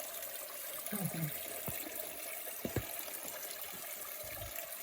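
Steady trickle of running water, with a few light knocks and a brief low voice about a second in.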